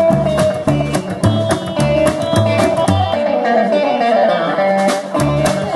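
Rock and roll music played by a band: guitar over a steady bass and drum beat, with the low beat dropping out for a couple of seconds near the middle.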